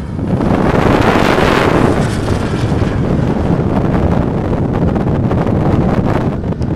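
Radio-controlled Jet Provost T5 model jet passing overhead, a loud rushing engine noise that swells to its loudest about a second in and then holds steadier as the plane banks away. Wind buffets the microphone throughout.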